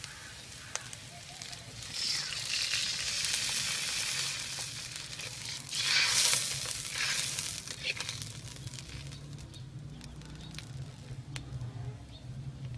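Water poured into a hot, oiled iron wok of sautéed vegetables, hissing and sizzling. The sizzle swells about two seconds in, peaks about six seconds in as it is stirred, then dies down, with a few light metal clicks of the skimmer on the wok.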